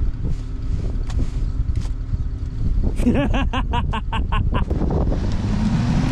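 Lifted Jeep Cherokee's engine running with its rear wheels spinning in deep snow, stuck; the Jeep is down to two-wheel drive with a blown differential. The engine note rises near the end, over wind on the microphone.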